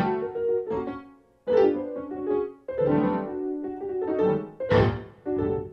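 Piano music: chords struck one after another, each left to ring and fade, with brief gaps between phrases.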